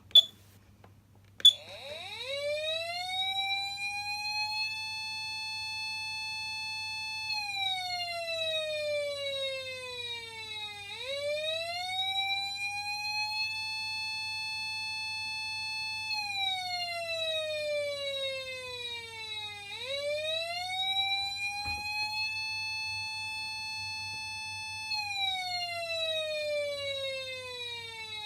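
Patlite SAP500BZ electronic siren amplifier sounding a slow wail: after two sharp clicks at the start, the tone rises over about three seconds, holds, then falls slowly before rising again, repeating about every nine seconds.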